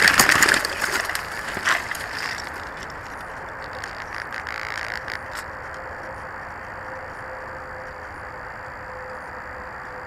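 FPV quadcopter crashed in brush, its propellers clicking and rattling against twigs and dry leaves for the first two or three seconds. After that only a steady hiss with faint thin high tones remains, with one more click about five seconds in.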